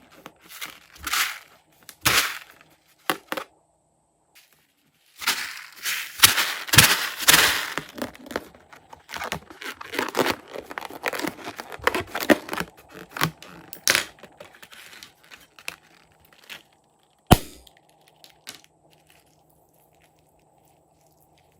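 Crinkling, crackling handling noise in irregular bursts, then a single sharp pop about seventeen seconds in, typical of a balloon bursting.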